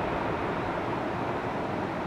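Steady jet engine noise from the Airbus A340-300's four CFM56 turbofans at approach power as the airliner flares just above the runway before touchdown.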